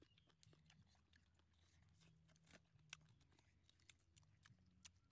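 Faint eating sounds from people chewing and biting roasted chicken legs: scattered short wet clicks and small crunches.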